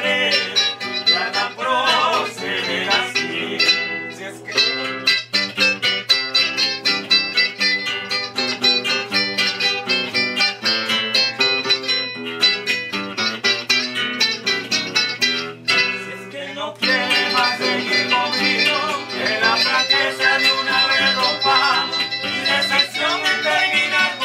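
A small acoustic ensemble playing live, with two acoustic guitars plucking and strumming a quick, rhythmic accompaniment. A male voice sings near the start and again from about two-thirds of the way through, with a mostly instrumental guitar passage in between.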